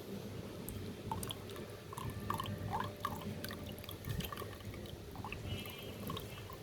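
Old oil, mixed with water and dirt, dripping out of an opened air-conditioner compressor in small, irregular drops.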